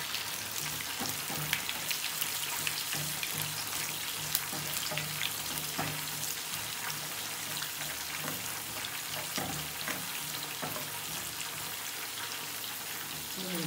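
A tempering of mustard and cumin seeds, peppercorns and lentils frying in hot oil in a pan: a steady sizzle with many small sharp crackles and pops, stirred with a metal slotted spoon.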